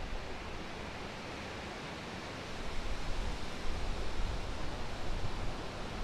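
Steady outdoor hiss of wind, with a gust buffeting the microphone as a low, uneven rumble from about halfway through to near the end.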